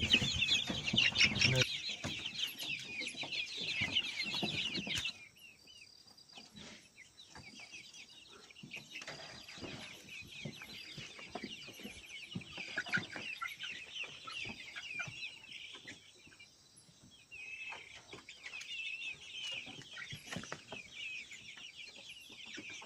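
A flock of chickens calling, loud and dense for the first five seconds. The calls then drop abruptly to fainter, scattered ones and thicken again near the end.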